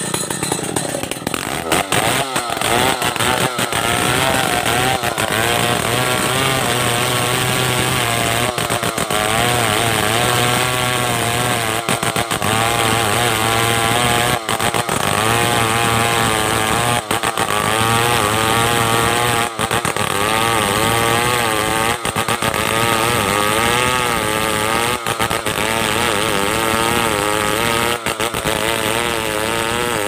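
Stihl 070 two-stroke chainsaw running at high revs while ripping lengthwise along a squared timber. The engine pitch wavers up and down under load, with brief dips every two to three seconds.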